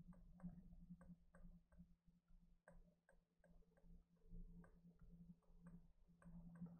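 Faint, irregular ticks of a stylus tapping a drawing tablet as short dashes are drawn, about three a second, over a low steady hum.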